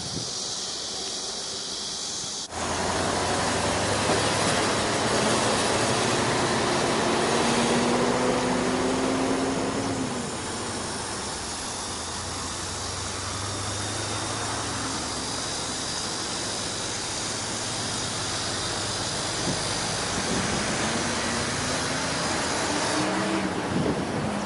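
A moving car's road and engine noise: a steady rush with a low hum, and an engine note that climbs slowly and then drops as the car speeds up and slows. The sound changes abruptly about two and a half seconds in.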